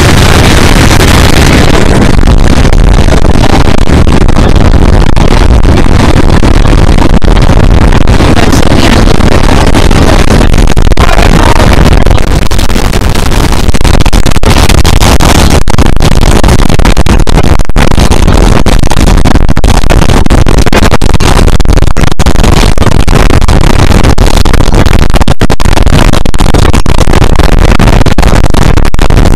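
Two class 47 diesel locomotives' Sulzer twelve-cylinder engines working hard at the head of the train, heard from an open coach window with heavy wind buffeting the microphone. Very loud and distorted throughout.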